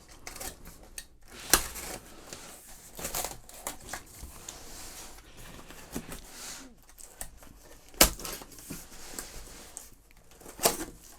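Packaging being unpacked by hand: crinkling and rustling of wrapping and cardboard, broken by a few sharp knocks, the loudest about one and a half seconds in, about eight seconds in and near the end.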